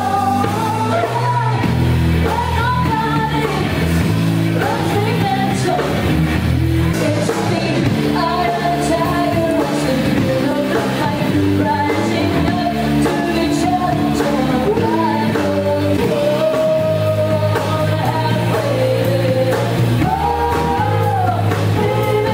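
Live rock band playing: a woman singing lead over electric guitar, bass guitar and a drum kit.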